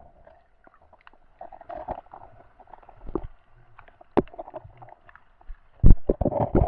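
Muffled underwater sound picked up through a camera's waterproof housing: low rumbling water movement with irregular knocks and bumps. A louder cluster of knocks comes near the end.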